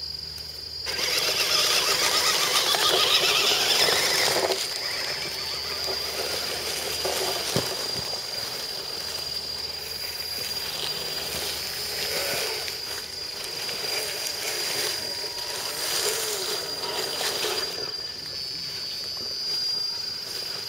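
Scale RC crawler trucks driving over dry leaves and dirt: tyres crunching leaves and small electric drivetrains whirring, loudest in the first few seconds and swelling again as later trucks pass. A steady high-pitched squeal runs underneath.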